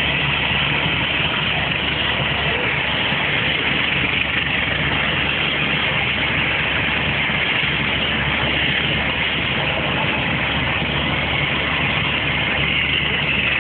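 An engine idling steadily under a constant hiss, with no change in pitch or level.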